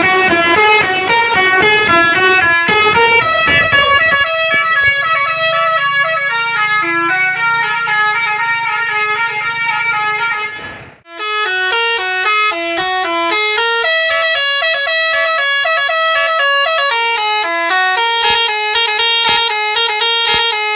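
Basuri musical air horn on a bus playing a melody of quick stepping notes, stopping briefly about eleven seconds in and then playing on.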